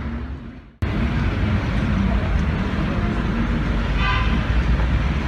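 Street traffic noise, a steady low rumble of passing vehicles, with a short horn toot about four seconds in.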